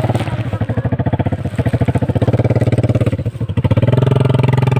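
Motorcycle engine running with a fast, even pulsing. It dips briefly about three seconds in, then picks up again with a steadier note.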